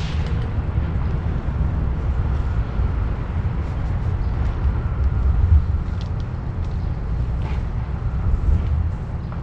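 Steady low rumble of outdoor background noise, with a few faint ticks and no speech.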